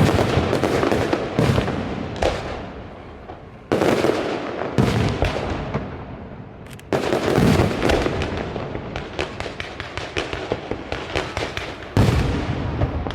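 Aerial fireworks shells bursting overhead: five sudden loud bursts, at the start, near 4 and 5 seconds, around 7 seconds and near the end, each followed by dense crackling that fades.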